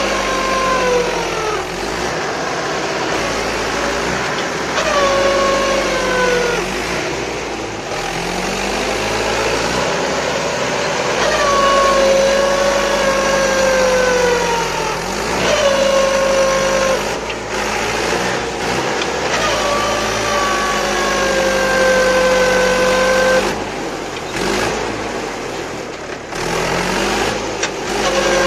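Mahindra 475 DI tractor's diesel engine labouring under heavy load in soft mud. A whine rides over the engine note and sags in pitch several times, for one to three seconds each, as the engine is pulled down.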